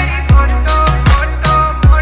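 Haryanvi DJ dance song playing: heavy sustained bass under a beat of falling-pitch drum hits about twice a second, with a synth melody on top.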